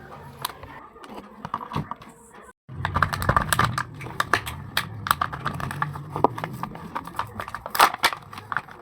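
Rapid crackling and clicking of packaging and craft paper being handled during unboxing. The sound cuts out briefly about two and a half seconds in, then the crackling resumes, busier.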